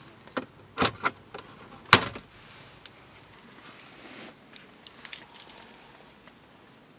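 A car's plastic glove box lid being pushed shut: a couple of clicks, then a louder latching clack about two seconds in, followed by a few faint taps.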